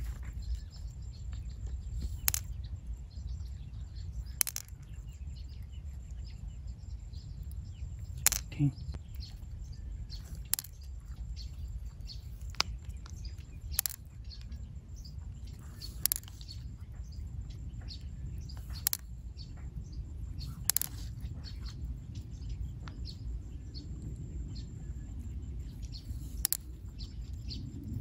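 Hands working through a freshwater pearl mussel's flesh and shell to pick out pearls: sharp clicks and taps every couple of seconds over a low steady rumble, with faint bird chirps.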